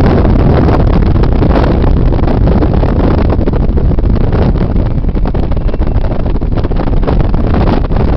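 Loud, steady rush of wind buffeting the microphone at a car window at highway speed, over 70 mph, with the car's road noise underneath.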